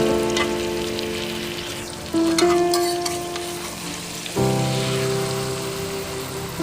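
Goat meat sizzling in hot oil with onions and whole spices in a cooking pot. Over it, background music holds sustained chords that change about every two seconds.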